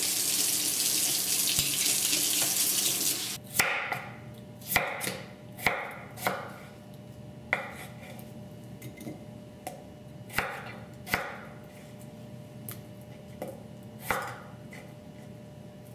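A kitchen tap runs into a steel sink for about three seconds and then shuts off. After that, a chef's knife cuts peeled raw potatoes into strips on a wooden cutting board: a dozen or so crisp chops, unevenly spaced about a second apart.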